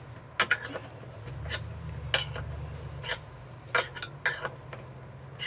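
Sharp metallic clinks, six or seven at irregular intervals, from stainless steel cup hooks for Christmas lights being handled and screwed in.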